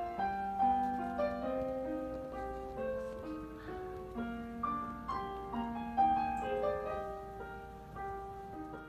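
Background piano music: a melody of single struck notes over lower held notes.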